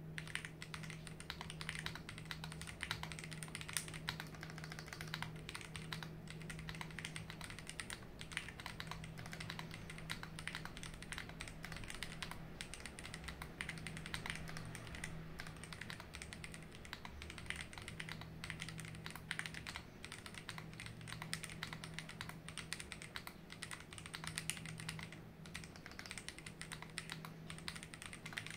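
KBDfans D65 65% mechanical keyboard being typed on continuously, a quick, uneven run of key clicks and clacks with no pauses.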